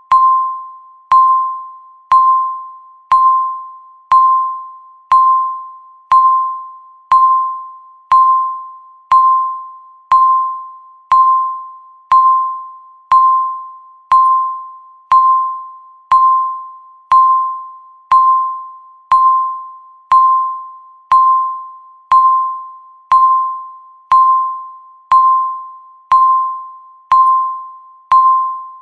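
Countdown timer beep sounding once a second, each a single clear electronic tone struck sharply and fading away before the next, marking each second left on the countdown.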